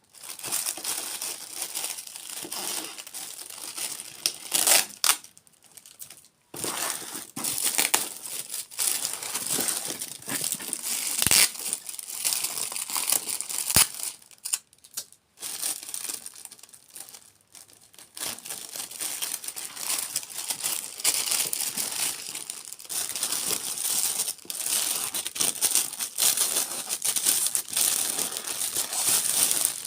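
Close-miked ASMR crinkling and crackling, in bouts with brief pauses around six, fifteen and seventeen seconds in.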